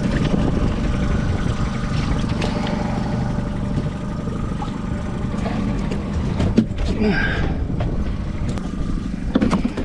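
Boat motor running steadily at trolling speed, with a single sharp knock about six and a half seconds in.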